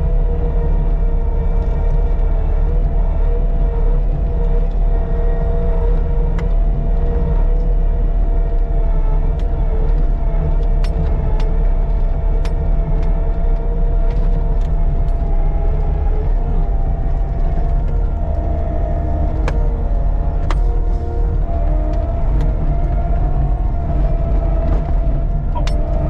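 Caterpillar 299D2 compact track loader running under load, heard from inside its cab: a steady deep engine rumble with a constant whine over it, and scattered sharp clicks and cracks.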